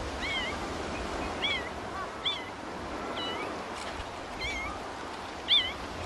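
Kittens mewing: short, high-pitched mews about once a second, the loudest one near the end, over a steady wash of surf noise.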